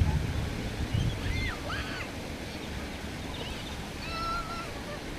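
Wind buffeting the microphone in a steady low rumble, with birds calling over it: two short rising-and-falling calls about a second and a half in, and a longer, steadier call about four seconds in.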